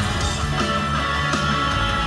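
Live rock band playing loud: distorted electric guitars, bass and drums, recorded from within the crowd.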